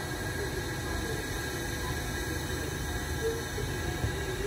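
Large bogie covered goods wagons rolling slowly during shunting, a steady low rumble.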